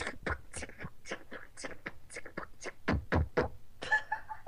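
Beatboxing: a quick run of mouth-made drum sounds, with kick thumps, spat hi-hat hits and inhaled snares, in the basic 'bukchigi bakchigi' beat.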